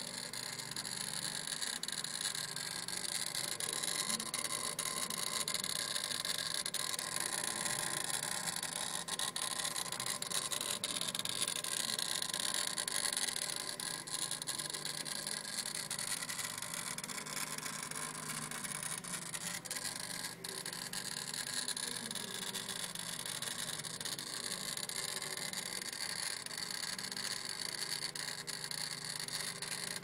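Mitsubishi CE Lancer's 16-valve four-cylinder engine idling, heard close up in the engine bay, with a steady high hissing noise over the low hum of the idle. The owner suspects the noise comes from the throttle body.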